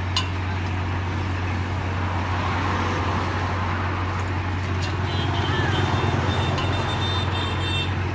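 Kubota combine harvester's diesel engine running steadily as the crawler machine moves on steel loading ramps. A high-pitched squeal joins in about five seconds in and stops just before the end.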